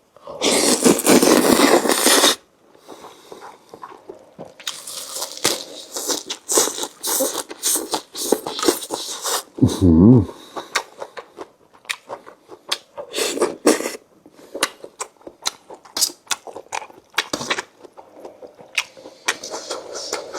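Close-up eating sounds of rice noodles in curry with fresh vegetables. It opens with a loud two-second slurp, then goes on as wet chewing and crunching with many small mouth clicks and smacks. About ten seconds in there is a brief hummed 'mmm'.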